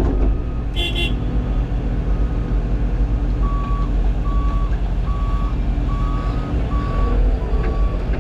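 CAT 323 excavator's diesel engine running steadily, with a backup alarm beeping about once a second from a few seconds in, and a brief rattle about a second in.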